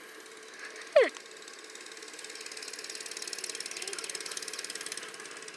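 Doodlebug mini bike's small single-cylinder engine buzzing in the distance, growing louder and then easing off. About a second in, a brief, loud squeal falling in pitch.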